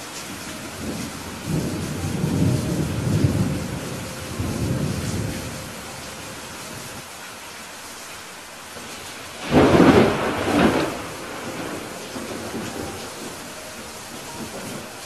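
Steady rain hissing, with thunder: a low rolling rumble a couple of seconds in, then a louder, sharper thunderclap about two-thirds of the way through that rumbles briefly away.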